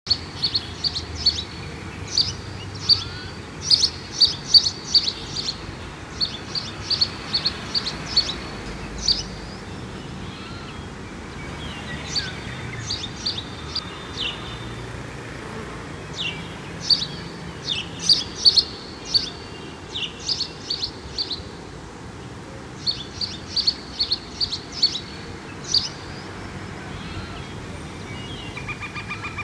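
A small bird calling in bouts of quick, high-pitched chirps, several seconds at a time with pauses between, over a steady background hiss.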